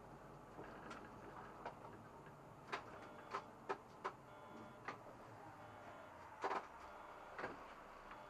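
Irregular clicks and light knocks, about seven of them and unevenly spaced, inside a SOR NB 12 city bus over a faint steady hum.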